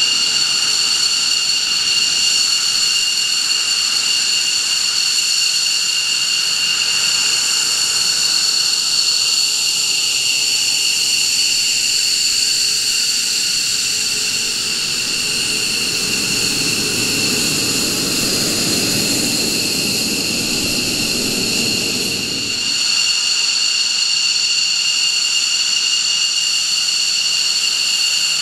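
McDonnell Douglas F-15 Eagle taxiing, its twin jet engines at low taxi power giving a steady high turbine whine. A deeper rumble swells about halfway through as the jet passes close, then drops away abruptly about three-quarters of the way in.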